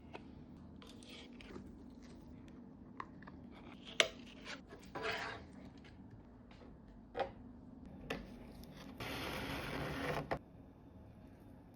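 Porcelain stoneware tile being worked by hand: scattered clicks and knocks, with short scrapes. A sharp click comes about four seconds in, and a steady rasping noise lasts about two seconds near the end.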